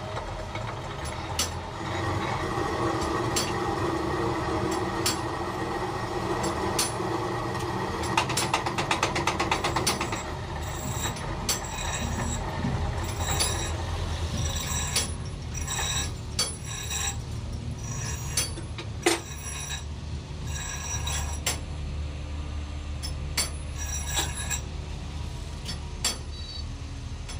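Belt-driven metal lathe running with a steady low hum. For the first ten seconds or so there is a louder scraping whirr, with a fast run of ticks near its end, and after that scattered metallic clicks and knocks.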